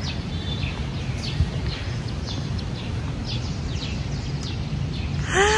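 Birds chirping, short high calls repeated many times over a steady low rumble of outdoor background noise.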